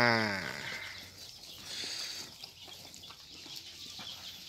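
Lambs eating fermented feed from a trough: faint chewing and rustling of the feed, with a short high call about two seconds in.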